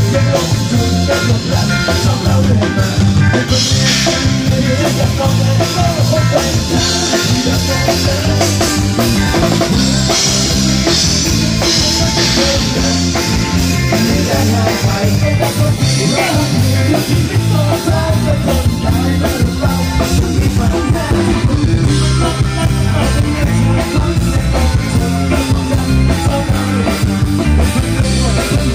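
Live rock band playing loud: electric guitars and a drum kit driving a steady beat, with a man singing into a microphone, heard through the stage PA.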